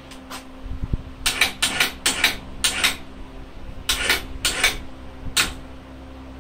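Sharp metallic clicks and clanks in quick runs, about ten in all, with a dull thump about a second in, from the chain hoist and steel battery frame as the hanging battery pack is handled.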